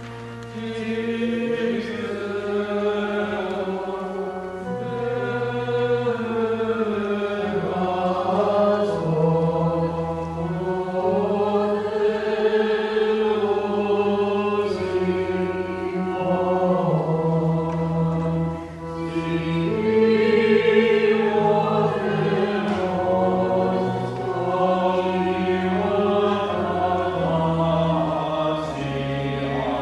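Byzantine chant: low voices singing a slow melody over a low note held for several seconds at a time, the held note shifting step by step.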